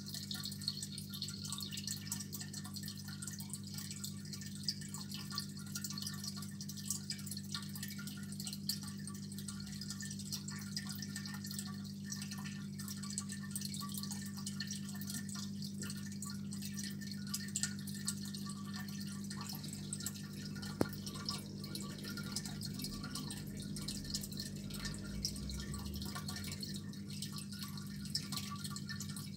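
Aquarium filter humming steadily, with water dripping and trickling into the tank.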